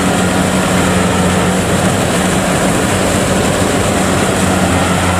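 Kubota DC70 combine harvester's diesel engine running steadily, a constant low drone with no change in pitch.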